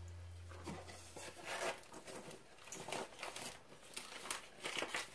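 Faint crinkling and rustling of plastic packaging being handled, with scattered light clicks.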